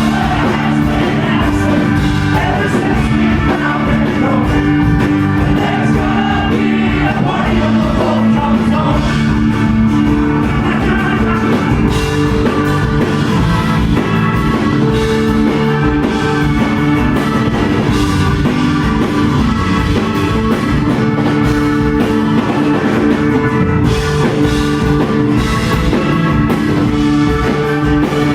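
Live rock band playing, with drums and guitar, and a voice singing.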